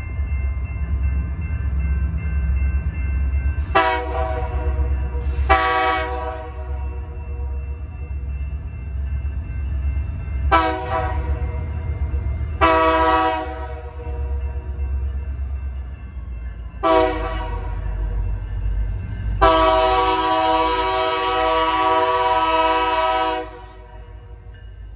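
Diesel freight locomotive blowing its multi-note air horn for a grade crossing as it approaches: six blasts, short and longer, the last held about four seconds, over the steady low rumble of the engine and train.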